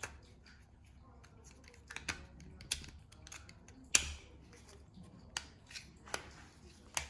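Sharp, scattered plastic clicks and taps as the small parts of a turn signal switch are handled and snapped together, about seven in all, the loudest about four seconds in.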